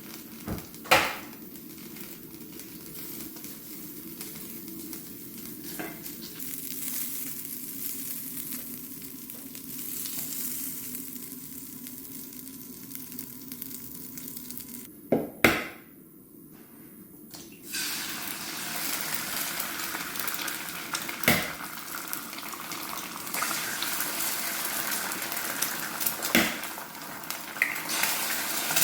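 Vegetables sizzling as they fry in olive oil in a pan, with a few sharp knocks of a utensil against the pan. The sizzle breaks off briefly about halfway and comes back louder.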